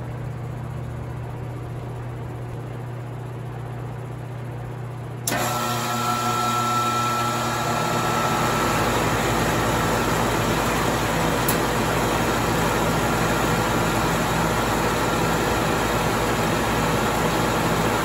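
A box fan lying on an outdoor central air-conditioner condensing unit hums steadily. About five seconds in, the condensing unit switches on with a sudden jump in sound and a brief whine, then runs steadily, growing louder again a few seconds later. Its condenser fan has a bad capacitor and gets going only because the box fan's airflow has already set its blades turning.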